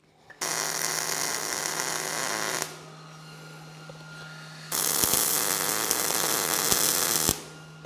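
Wire-feed (MIG) welder arc crackling in two welds of about two seconds each, separated by a short pause, as end caps are welded onto steel square tube. A steady low hum carries on under and between the welds.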